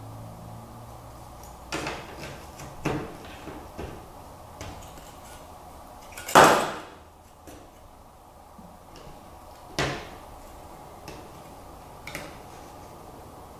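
Wooden MDF kit panels and circuit boards being handled and set down on a cutting mat: a handful of light knocks and clatters, the loudest about six and a half seconds in.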